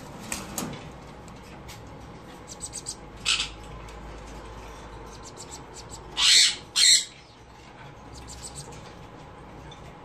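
Sun conures calling: a short harsh squawk about three seconds in, then two loud harsh screeches back to back a little after six seconds.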